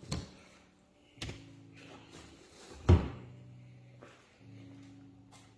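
Handling knocks and clunks from the electric drywall sander's parts as its extension section is fitted, three sharp knocks with the loudest about three seconds in.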